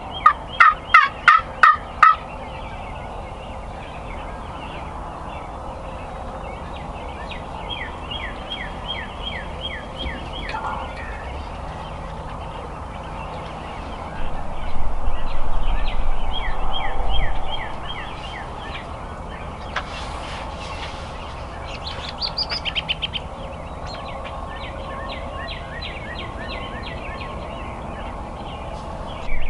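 Merriam's wild turkey toms gobbling close by: one loud, rapid rattling gobble in the first two seconds, then quieter strings of gobbles and calls through the rest. A louder low rumble lasts a few seconds around the middle.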